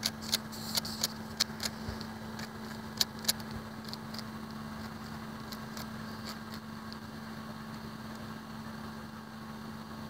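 Plastic clicks of a 3x3 Rubik's cube being twisted by hand to scramble it: quick, irregular clicks in the first few seconds, the loudest about three seconds in, then fainter and sparser. A steady low hum runs underneath.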